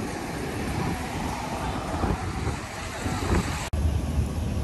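Outdoor street noise: traffic going by, with wind rumbling on the microphone.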